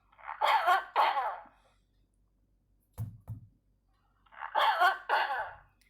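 Ordinary coughs, played as the contrast to whooping cough: two coughs in quick succession, a short low thump about three seconds in, then two more coughs.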